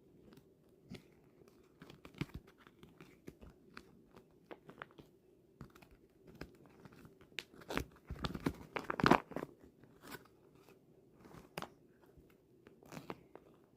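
Sticky squishy toys being handled and pulled apart, with scattered small clicks and crackles and a denser, louder patch of crackling about eight to nine seconds in.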